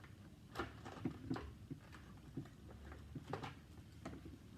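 Plastic parts of a Shark Rotator vacuum knocking and clicking as a piece is worked to line up and snap into place, a few sharp clicks with the loudest about a second in and again past three seconds.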